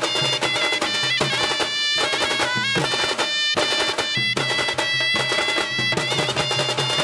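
Konkan khalu baja ensemble playing: a sanai (shehnai-like double-reed pipe) carries a wavering, bending melody over fast, dense drumming on dhol barrel drums beaten with sticks.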